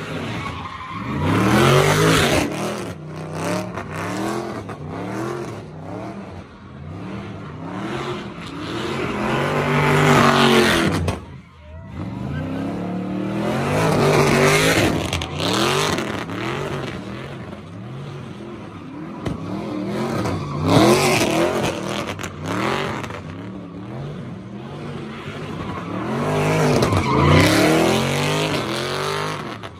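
Dodge Charger doing donuts: the engine revs up and drops back again and again in about five big swells, with the rear tyres spinning and squealing on the asphalt. The sound eases off briefly about a third of the way in, then builds again.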